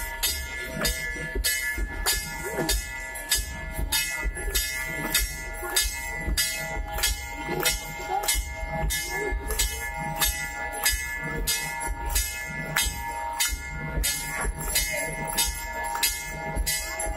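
Temple aarti: bells ringing without pause over a regular beat of sharp metallic strikes, about two to three a second.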